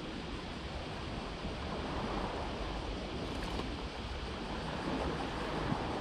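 Steady wash of sea water, with wind rumbling on the microphone.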